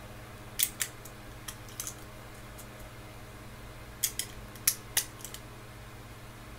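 Sharp clicks of 9mm cartridges being picked up and pressed one by one into a Makershot speedloader on a pistol magazine, in small clusters about a second in and again from about four seconds in, over a low steady hum.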